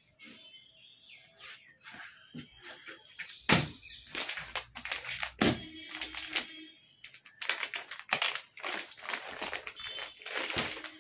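Clear plastic packaging around a folded suit crinkling and rustling as it is handled, a run of crackles that grows louder about a third of the way in.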